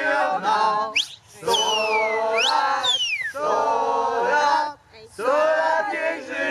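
A group of men and women singing and chanting together loudly, with high sliding squeals cutting across them between about one and three and a half seconds in.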